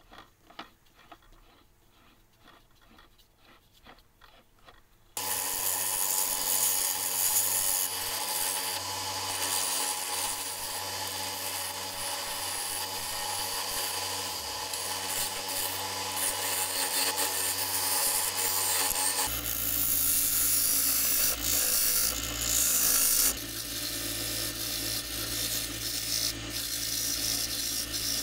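Faint ticking at first, then from about five seconds in a wood lathe spinning a glued-up pallet-wood turning while a hand-held turning chisel cuts and scrapes it, a steady loud scraping hiss. About two-thirds through, the lathe's hum drops lower and the tool work carries on.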